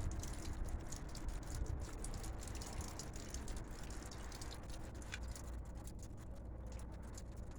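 Water dripping and pattering from melting icicles: many small irregular taps over a steady low rumble.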